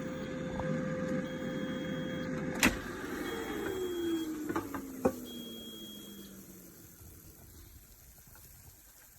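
Countertop air fryer's fan running with a steady hum. A loud click comes a little under three seconds in, and the fan then winds down, its pitch falling over about four seconds as the cooking cycle ends. Three short high beeps sound about two seconds apart, with a couple of smaller clicks.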